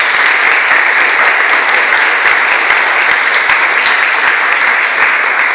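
An audience applauding: many people clapping together in a dense, steady round of applause.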